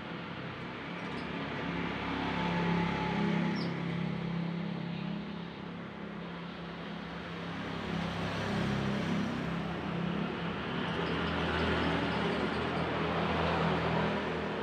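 Steady droning background noise, engine-like, with a few faint high bird chirps, a short run of them near the end.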